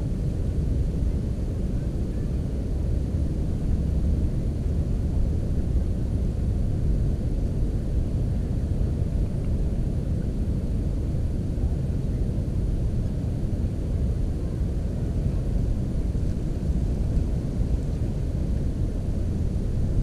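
Steady low rumbling noise with no distinct calls or sudden sounds.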